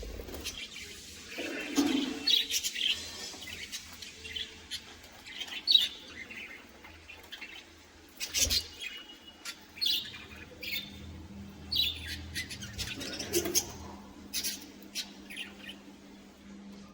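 A colony of budgerigars chirping and chattering, with many short, high calls overlapping at irregular intervals.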